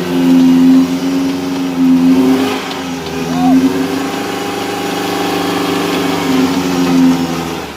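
Off-road four-wheel-drive vehicle's engine running hard at fairly steady revs, with a short dip in revs about two and a half seconds in.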